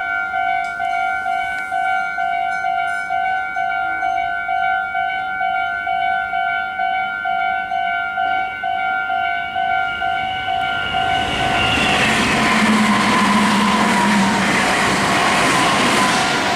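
Japanese railway level crossing's electronic warning bell ringing in an even, repeating ding. About eleven seconds in, a Meitetsu electric train starts passing over the crossing, and its rushing noise, with a low hum, swells up and partly covers the bell.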